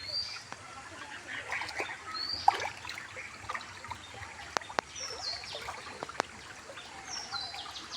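Floodwater trickling and running steadily. A bird gives short high chirps every couple of seconds, and a few sharp clicks sound in the second half.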